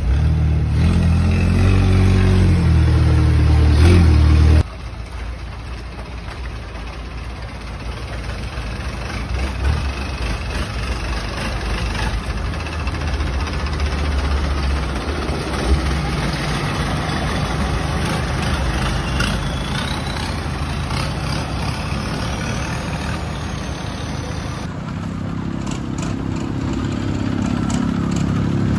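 Longtail boat engines running: a loud, low engine drone for the first few seconds that cuts off abruptly, then a quieter steady rumble, and near the end another longtail boat's engine growing louder as it comes closer.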